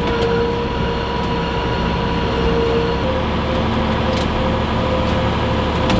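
John Deere 6715 tractor running steadily under way, heard inside the closed cab: an even engine and drivetrain drone with a steady high whine over it.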